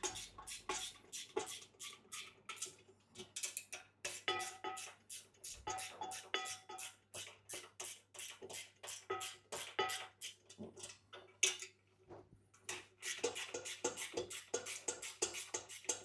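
8mm spanner tightening the pinch bolts on a metal bed upright: runs of quick metallic clicks and clinks, several a second, with a short pause about three-quarters of the way through.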